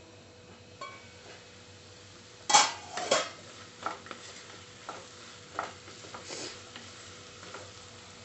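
A stainless-steel pan lid clinks, then is lifted off and set down with a loud metallic clatter about two and a half seconds in. A wooden spatula then stirs sliced okra in the pan, with irregular knocks and scrapes against the metal.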